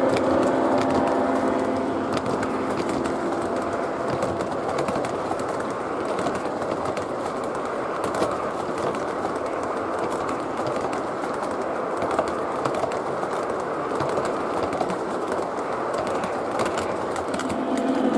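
O gauge model train boxcars rolling past on three-rail track: a steady rumble of metal wheels on rails with many small ticking clicks. A louder hum swells in near the end.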